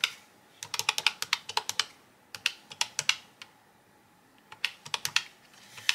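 Keys of a pink desktop electronic calculator with round, typewriter-style keycaps being pressed in quick runs of clicks while a column of expense figures is added up. There is a pause of about a second partway through before the tapping resumes.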